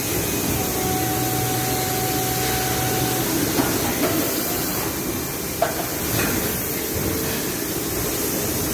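Plastic injection moulding machine and its Sepro take-out robot running through a cycle: a steady mechanical hiss and hum, with a held whine for the first three seconds or so and a few sharp clicks and knocks in the second half.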